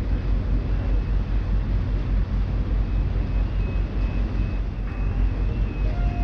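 Passenger boat's engine running at cruising speed: a steady low pulsing drone over the rush of the wash, with a faint steady high whine from about halfway through.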